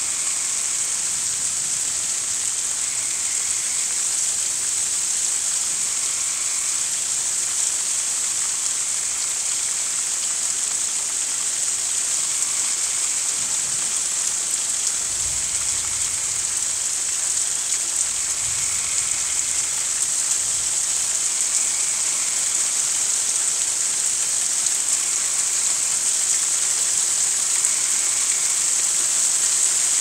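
Steady rain hiss at night, with faint frog calls recurring every few seconds. A low distant rumble of thunder comes twice around the middle.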